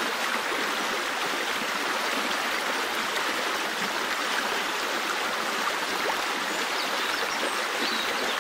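Small forest stream in spring flood flowing over a low step: a steady splashing rush of water.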